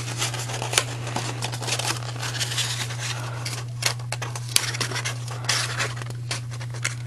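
Patterned paper rustling and crinkling as it is rolled and pressed into a cone by hand, with scattered short sharp paper clicks. A steady low hum runs underneath.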